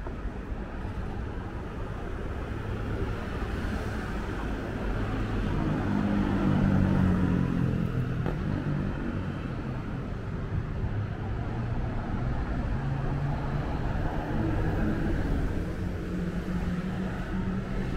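Road traffic: a motor vehicle's engine running close by, its low hum growing louder in the middle and again near the end, over general street noise.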